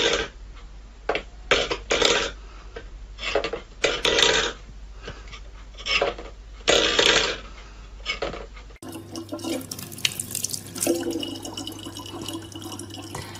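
A stainless steel bowl knocked and scraped against a wooden floor by a cat's paw, in a string of short noisy bursts. About nine seconds in, after a cut, a thin stream of tap water runs steadily into a plastic bottle.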